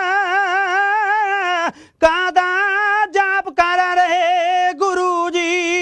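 Unaccompanied Punjabi kavishri singing: a man's high voice holds long, drawn-out notes with a wide vibrato. It breaks off briefly just under two seconds in, then goes on.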